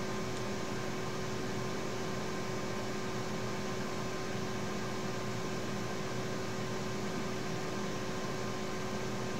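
Steady background hum and hiss with a few faint steady tones, unchanging throughout: room tone.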